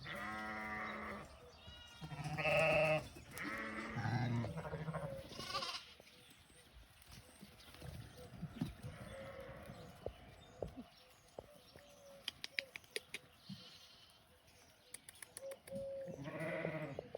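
Sheep bleating: several wavering bleats in the first six seconds, then a quieter stretch and one more bleat near the end.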